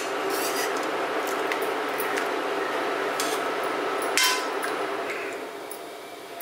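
Steel slotted spoon knocking and scraping against a steel pot and a glass bowl while wet blanched spinach is lifted across, with a few sharp clinks, the loudest about four seconds in, over a steady hiss that fades near the end.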